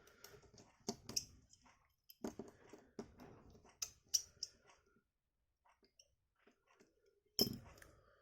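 Light clicks, taps and scraping of small tools and phone parts being handled while a phone's screws are refitted, in irregular clusters through the first half, with a single sharper click near the end.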